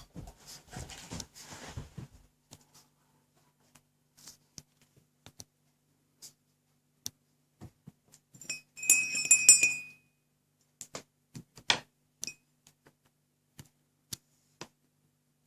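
Rubber squeaky pig toy squeezed by a Dobermann's jaws: one squeak of about a second around nine seconds in and a short blip a few seconds later. Scattered light clicks and taps come between them.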